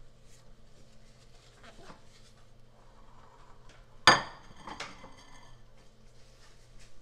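Ceramic soup bowl giving a sharp, ringing clink about four seconds in, followed by a lighter clink just after, over a faint steady hum.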